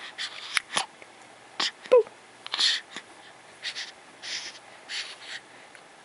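Young baby breathing in soft breathy puffs about once a second, with a few small clicks early on and one short coo about two seconds in.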